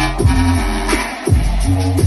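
Hip-hop backing track playing loud, with a heavy bass and a steady beat, between rapped lines.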